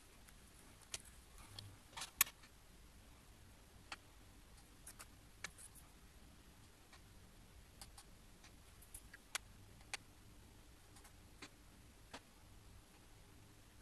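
Faint, irregular clicks and taps of a plastic laminating sheet being handled and set down on a glass craft mat, a second or two apart, over a faint low hum.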